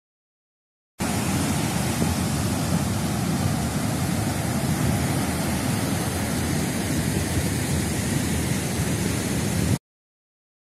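Ocean surf breaking and washing onto a beach, a steady rushing that starts about a second in and cuts off abruptly near the end.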